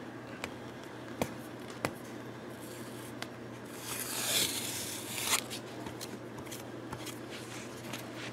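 Countersink bit scraping into a guitar body's finish around a screw hole, cutting a small bevel so the finish won't crack; the dry scraping swells for about a second and a half past the middle, after a few light clicks of handling.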